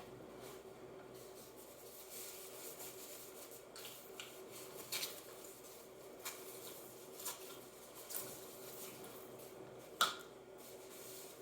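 Faint handling of an unboxed matcha grinder and its packaging: scattered light clicks and rustles, with a sharper knock about ten seconds in.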